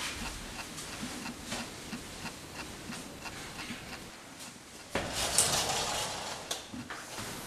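Footsteps on a hard floor, faint and fairly even, walking away. About five seconds in they give way to a sudden louder rustling noise lasting about a second and a half.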